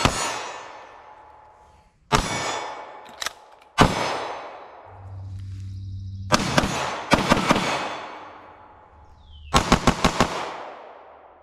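A ported 9mm CZ Shadow 2 Compact pistol being fired. Single shots come about two and four seconds in, then two quick strings of several shots around six to seven seconds and again near ten seconds, each shot trailing off in a ringing echo.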